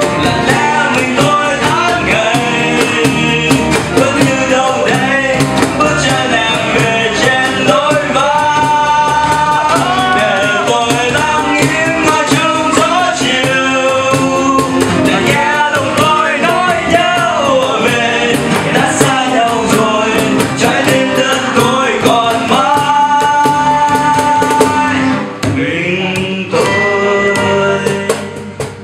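A singer performing a cover of a Vietnamese pop song over full instrumental backing. The music thins out near the end and the song finishes.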